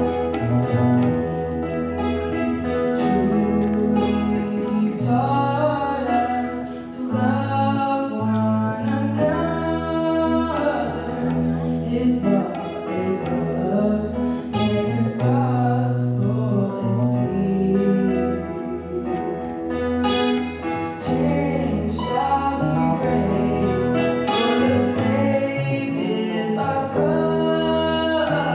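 Electronic keyboard accompaniment with a woman singing a slow song into a microphone; the singing comes in a few seconds after the keyboard.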